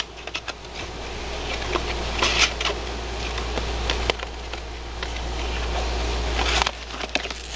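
Rustling and light clicks from a box of hockey cards being handled and opened, over a steady low hum.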